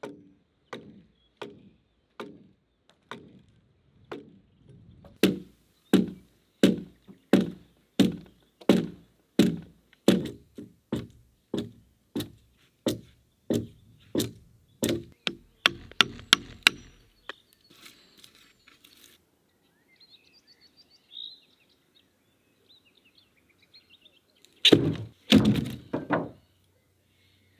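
Axe chopping into a log, in a steady rhythm of about three strokes every two seconds, with the strokes getting sharper and louder for several seconds before they stop. After a quiet pause come a few heavy wooden thuds.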